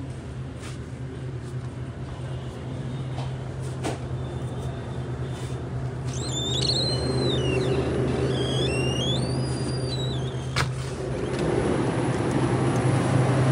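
Steady low hum of refrigerated glass-door drink coolers, growing louder as they are approached. A cooler door is pulled open about six seconds in, with a few high wavering squeaks over the next few seconds and a sharp click about ten seconds in.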